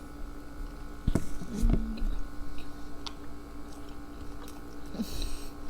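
Close-up sounds of someone chewing sushi, with scattered wet mouth clicks and a brief hummed "mm" about a second and a half in, over a steady low electrical hum.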